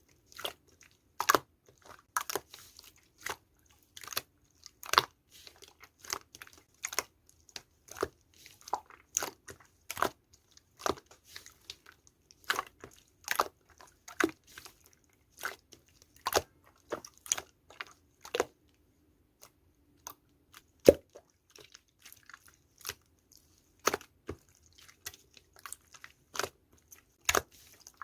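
Clear slime being squeezed and worked by hand, giving irregular sharp clicks and pops, with a short lull about two-thirds of the way through.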